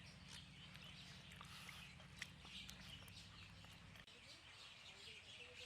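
Faint outdoor ambience with small birds chirping, over a low steady hum that stops about four seconds in.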